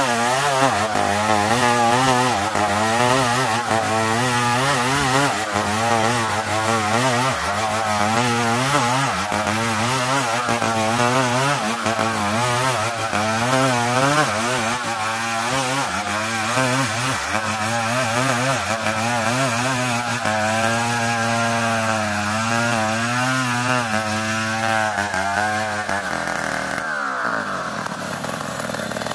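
Chainsaw rip-cutting a dense-grained ulin (Bornean ironwood) log lengthwise, the engine held at high revs under load with its pitch wavering as the chain bites. About 27 seconds in the throttle is let off and the engine pitch drops away toward idle.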